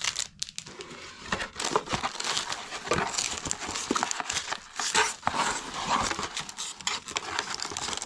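Plastic packaging crinkling and rustling as items are handled and rummaged through in a cardboard box, with many small crackles throughout.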